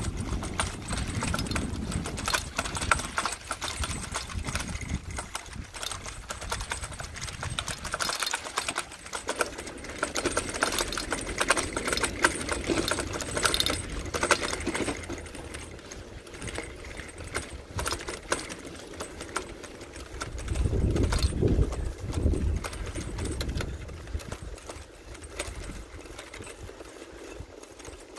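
Bicycle rattling and clicking steadily as it is ridden over a rough surface, with wind rumbling on the microphone at the start and again about twenty seconds in.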